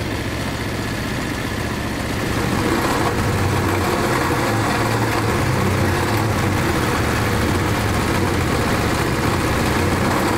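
BAWAD 109 surface-drive mud motor with a Lifan 9 hp single-cylinder four-stroke engine running steadily under way, a little louder from about two and a half seconds in.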